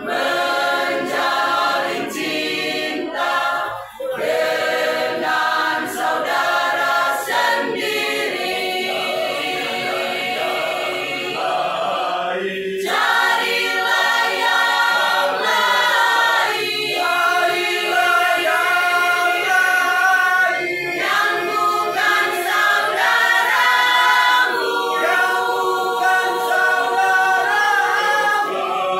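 A masamper choir of men and women singing a cappella in harmony, the traditional Sangihe-Talaud group part-singing, in long held phrases with brief breaks between them.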